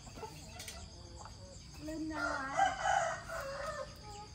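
A rooster crowing once, one call of about a second and a half starting about two seconds in.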